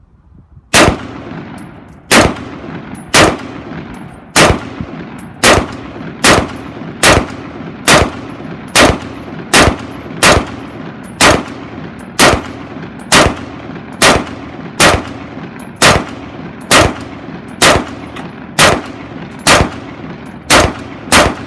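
A 5.56 mm T91-clone rifle (Taiwanese T91 pattern) fired in single shots at a steady pace of about one a second, about two dozen shots, each with a short echo trailing off.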